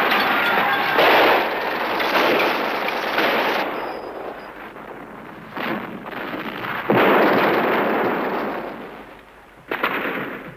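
Battle sounds: bursts of gunfire and blasts, the loudest blast about seven seconds in, dying away over the next two seconds.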